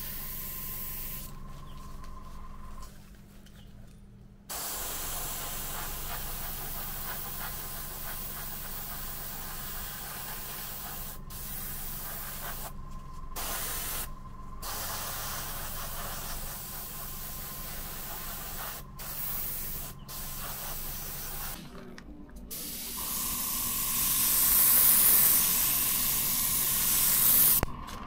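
Airbrush spraying paint in hissing bursts, broken by several short pauses where the trigger is let off; the loudest, longest burst comes near the end.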